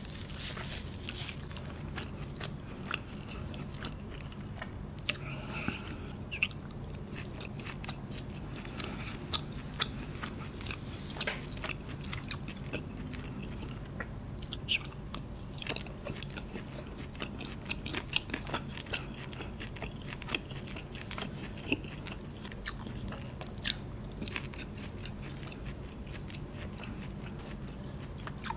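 Close-miked chewing of noodles eaten by hand, with moist mouth clicks and smacks scattered irregularly throughout, over a steady low hum.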